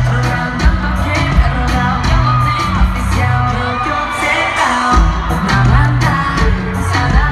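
Live reggaeton concert music over an arena sound system: a heavy, repeating bass beat with drum hits and a singing voice.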